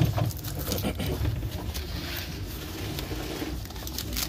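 Fresh banana leaves rustling and crinkling as they are pressed and tucked into an aluminium cooking pot, with a few light knocks, over a low rumble.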